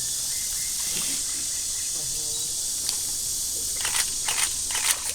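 Steady high-pitched drone of swamp insects. Near the end come several short, sharp rustling knocks.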